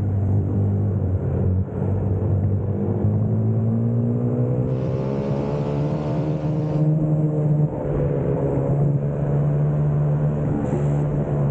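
Go-kart engine running at speed, heard from on board the kart, its note rising and falling as it speeds up and eases off.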